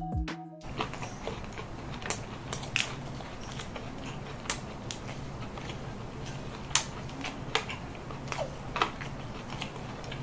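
Close-up eating sounds: a person biting and chewing crunchy food, with sharp irregular crunches every second or so.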